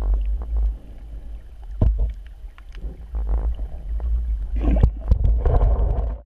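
Muffled underwater noise through a GoPro's waterproof housing: a low rumble of water movement with scattered small clicks. It grows louder about four and a half seconds in as the camera is swept up toward the surface, then cuts off suddenly.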